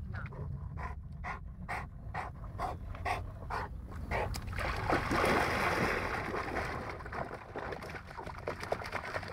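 A bullmastiff panting in a steady rhythm of about two breaths a second, then a loud splash of water about halfway through that lasts a couple of seconds.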